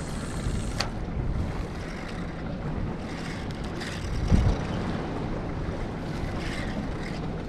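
Wind buffeting the microphone over choppy open water, with water lapping around the boat. A dull thump about four and a half seconds in is the loudest sound.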